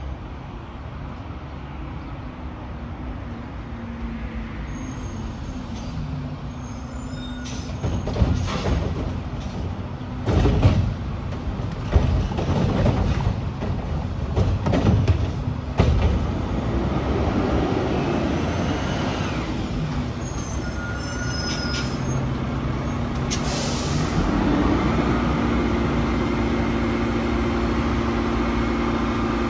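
Front-loading garbage truck working a pickup: its diesel engine running and revving, with a run of loud bangs and clatters from about eight to sixteen seconds in, then the engine rising and holding steady at higher revs.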